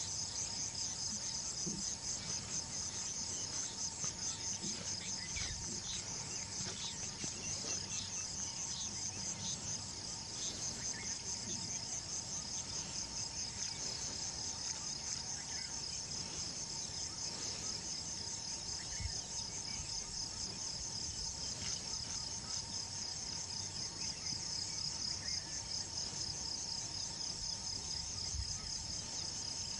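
Dense insect chorus: a high, rapidly pulsing trill that never breaks, with a faint steady lower whine beneath it.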